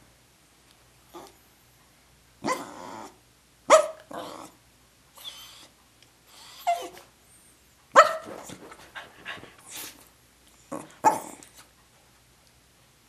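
A dog 'singing': a string of short yowls, barks and grumbles, about half a dozen separate outbursts with pauses between them. The busiest run comes about two-thirds of the way in.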